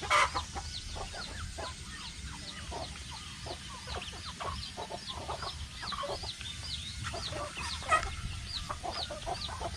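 A flock of village chickens clucking, with a steady stream of high, repeated peeping about three or four calls a second. A sharp knock sounds right at the start and again about eight seconds in.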